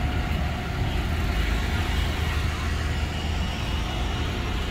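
Motor vehicle engine running steadily, a continuous low rumble with street noise.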